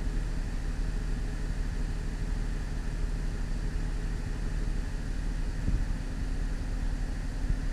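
2004 Cadillac CTS 3.6-litre V6 idling steadily. The cylinder 3 misfire is gone now that the engine computer has been replaced.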